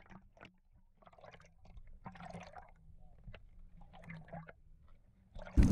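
Muffled underwater sound from a submerged camera: soft gurgling and sloshing of seawater with scattered small clicks. Near the end it cuts back suddenly to loud wind and water noise above the surface.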